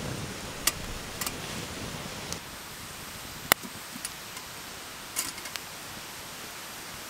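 Wood campfire crackling, with a few sharp pops, the loudest about halfway through, over a steady hiss.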